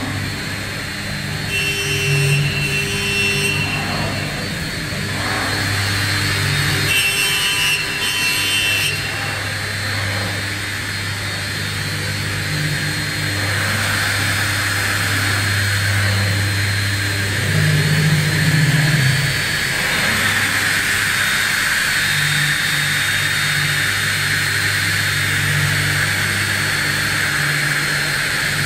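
CNC wood tenoning and grooving machine running: a steady low motor hum under a high hiss, with two brief high whines about two and seven seconds in. The hiss grows stronger about halfway through.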